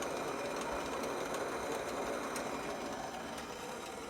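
Water at a boil, bubbling steadily with faint scattered ticks.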